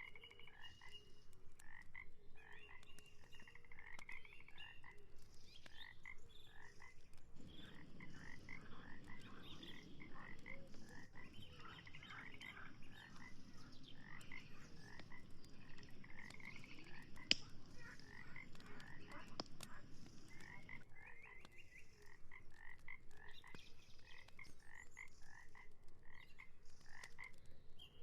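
Frogs croaking in a chorus of rapid, evenly repeated calls. A low steady noise joins from about seven seconds in until about twenty-one seconds, and there is a single sharp click in the middle.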